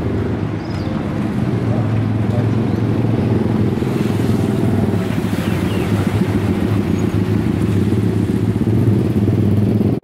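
Motor vehicle engine running steadily while driving, a low drone mixed with road and wind noise.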